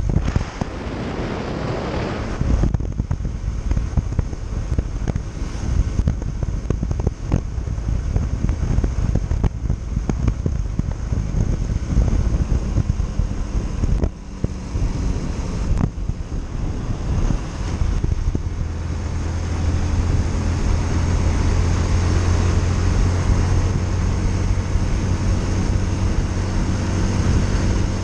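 Yamaha Factor 150 motorcycle's single-cylinder four-stroke engine running while riding, with wind buffeting the microphone. In the last third the engine note becomes steadier and a little louder.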